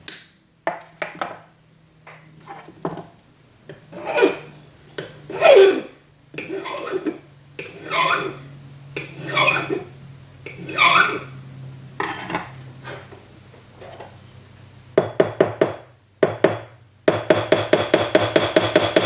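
Metal tools and pieces clattering and scraping as they are handled, then a small metalsmithing hammer tapping gold wire rivets to spread their heads on a sterling silver cuff: a few sharp taps, then near the end a quick, even run of ringing metal taps, about five a second.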